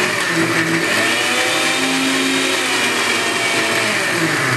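Electric mixer grinder (mixie) running loud and steady with a steel jar of watermelon chunks, its motor pitch wavering slightly. This is a timed run to pulp the watermelon flesh while leaving the seeds whole.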